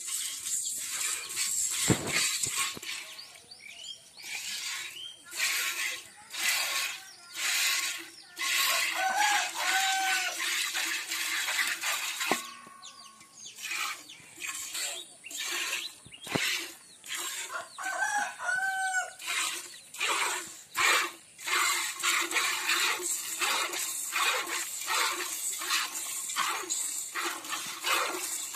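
Milk squirting from a cow's teats into a metal pot during hand milking: a quick run of short hissing spurts, one or two a second. A rooster crows twice, about a third and two thirds of the way through.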